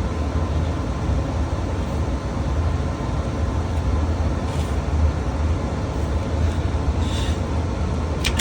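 Furnace blower fan running, a steady low rumble of air moving through the air handler, with brief rustles and a sharp click near the end.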